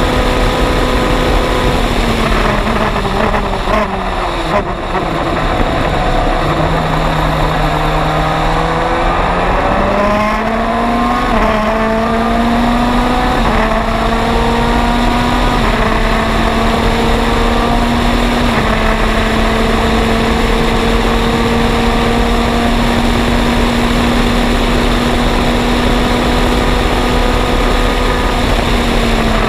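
MG Lola EX257 Le Mans prototype's turbocharged four-cylinder engine heard onboard at racing speed. The note falls as the car slows and shifts down a few seconds in and holds lower for a few seconds. It then climbs through several quick upshifts and holds a high, steady note at full throttle before starting to fall again at the very end.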